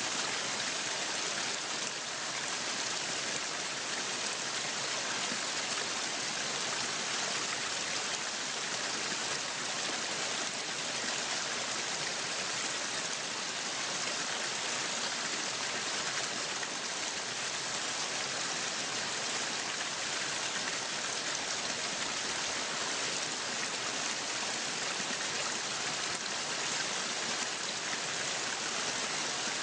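Waterfall: a steady, even rush of falling water with a hissing splash and no breaks.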